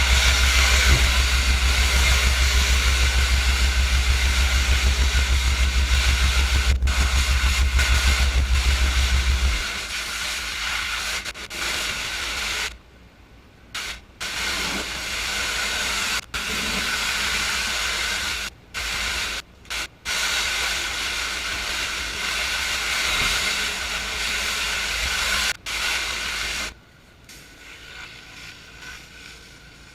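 Honda-engined pressure washer running with a steady high-pressure water spray hiss. About ten seconds in the deep engine hum drops away, and the spray hiss then cuts out and comes back several times before dropping to a low level near the end.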